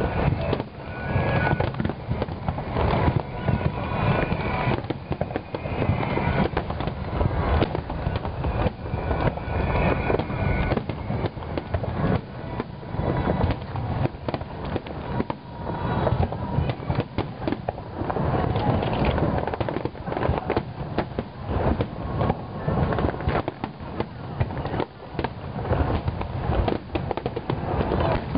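Fireworks display: a dense, continuous barrage of overlapping bangs and crackling explosions.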